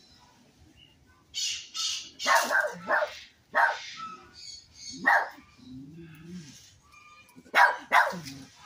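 Dog barking: a quick run of sharp barks starting about a second and a half in, then single barks and a final pair near the end.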